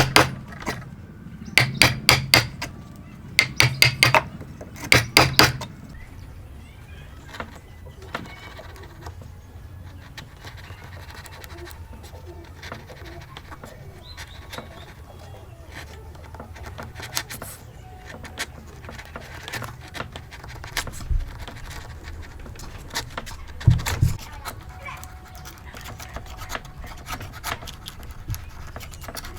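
Hammer striking in quick runs of sharp, ringing blows for the first several seconds. Then quieter hand-tool work on wood, light scraping and handling, with a couple of louder knocks about three-quarters of the way through.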